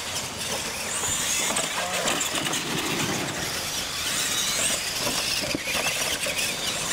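Radio-controlled monster trucks racing over a dirt track: their motors whine and the tyres scrabble and crunch over the dirt.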